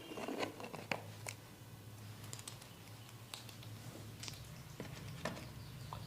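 Hands massaging, making irregular small clicks and soft slaps, about a dozen in the stretch, over a steady low hum.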